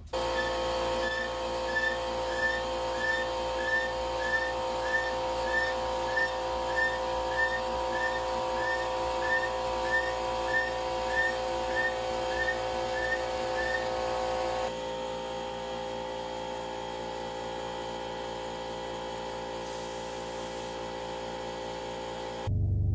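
Background music: a sustained synth drone with a short chirping note repeating about every 0.6 s. The chirps stop about 15 s in, leaving only the drone, and the music changes abruptly near the end.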